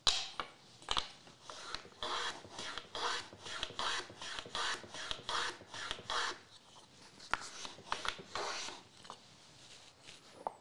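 Wood being taken down by hand with a quick series of even strokes, about two or three a second, trimming a proud edge flush; the strokes thin out near the end.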